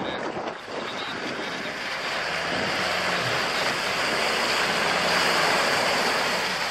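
SUV engine revving under load as it pushes through water up to its doors, its wheels churning and throwing up water. The splashing builds over the first few seconds and eases just before the end.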